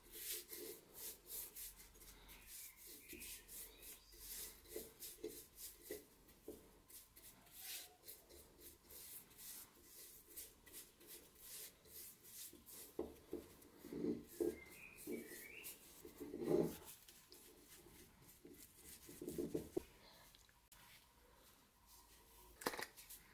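Paintbrush bristles stroking a dark finish onto a wooden hammer handle, a quick run of soft brushing strokes. Later come a few soft knocks from handling, the loudest about two-thirds of the way through.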